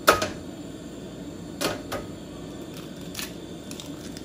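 Eggshells knocked and cracked against a griddle. There is a sharp knock right at the start, two more about a second and a half to two seconds in, and a faint one near the end, over a steady hiss from the lit propane stove.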